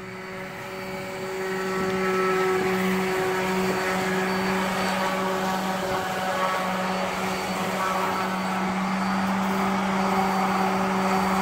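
Electric power sander running steadily on the oak cabinet wood, a constant motor hum with a hiss of sanding over it, growing louder over the first two seconds.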